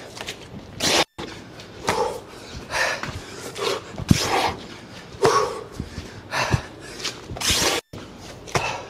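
A man breathing hard during burpees, a forceful exhale about once a second, with a few dull thumps of hands and feet landing on an exercise mat.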